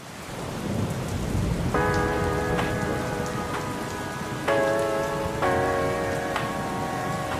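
Steady heavy rain falling, with a low rumble of thunder in the first few seconds. Soft sustained music chords come in about two seconds in and change twice.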